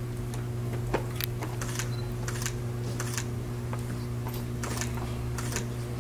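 Scattered sharp clicks, a few a second at irregular intervals, like camera shutters firing, over a steady low electrical hum.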